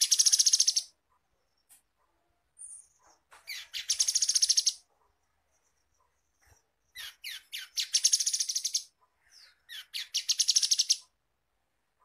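Grey-headed canary-flycatcher calling in four bursts of rapid, rattling, high-pitched trills, each about a second long, with a few short single notes in between.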